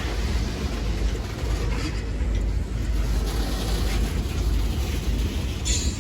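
Mississippi Export Railroad diesel freight train running: a steady low rumble from the locomotive and cars, with a brief high hiss near the end.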